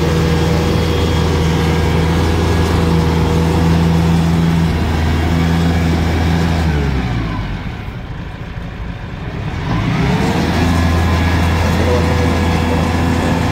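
Tractor diesel engine running steadily as the tractor drives down a truck's loading ramp. About seven seconds in the engine speed falls away, then about three seconds later it climbs back up to a steady run.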